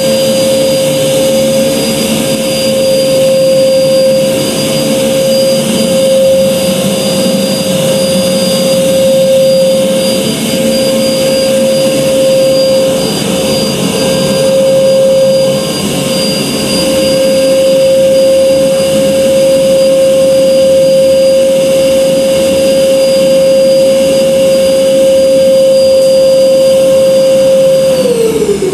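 Red canister wet/dry vacuum running with a loud, steady whine as its hose nozzle sucks up old grout scraped from the joints of a tiled floor. Near the end it is switched off and the motor whine falls in pitch as it spins down.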